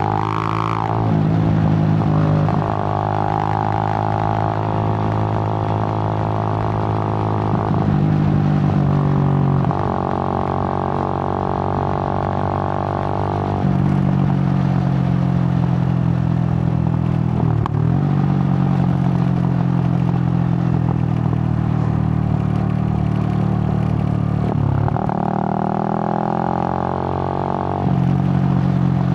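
Suzuki GN125's single-cylinder four-stroke engine running on the move. The note holds steady for a few seconds at a time, then dips briefly and settles at a new pitch, several times over.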